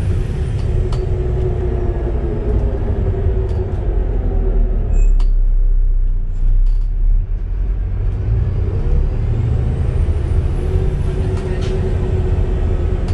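Volvo B7TL double-decker bus heard on board: the engine running, easing off about five seconds in and pulling again a few seconds later. A high whine rises in pitch as it picks up speed, the axle noise the uploader takes for a bad axle.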